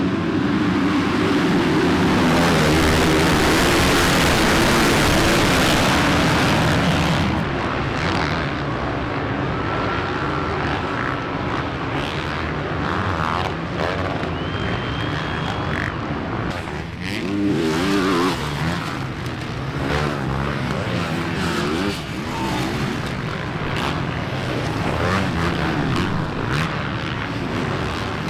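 A full gate of motocross bikes launching off the start line together: many engines at full throttle at once, loudest for the first several seconds. After that, single bikes rev up and down as they race around the track.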